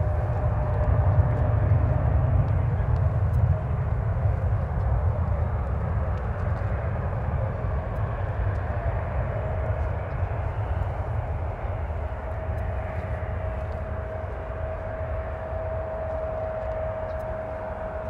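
Twin turbofan engines of a narrowbody jetliner at high thrust on its runway roll: a deep rumble loudest in the first few seconds, slowly fading as the jet moves away, with a steady engine whine throughout.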